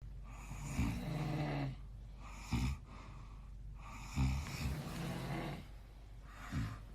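Sleeping men snoring, with four rough, rasping snores about every two seconds and breathing in between.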